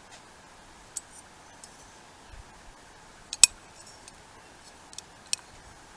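A few light clicks and clinks of small hard objects being handled, the sharpest a little past halfway, over a steady faint hiss.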